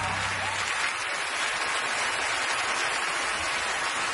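Large audience applauding, a steady dense wash of clapping, with the end of a music track fading out in the first second.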